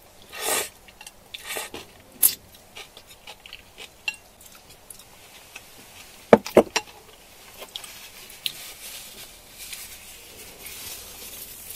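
Eating sounds: utensils clicking and scraping against a food container, in scattered strokes, with two sharp loud clicks about six and a half seconds in.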